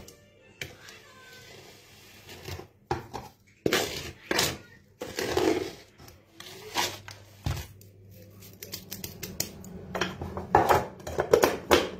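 A spoon scraping and tapping crumbs out of a wooden bowl into a clear jug, as scattered clicks and short scrapes that come thicker near the end.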